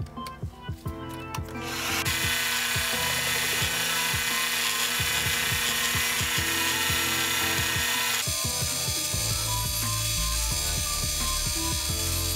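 Benchtop mini lathe starting up and turning brass stock, the cutting tool taking a cut with a steady loud hiss. About eight seconds in the high hiss falls away and a lower running rumble takes over. Background music plays throughout.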